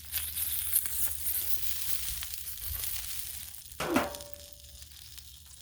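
Frozen chicken dumplings sizzling in oil on a hot Blackstone griddle, with small crackles in the hiss. The sizzle is loudest for the first three seconds or so and then dies down, and a brief sound with a falling pitch comes about four seconds in.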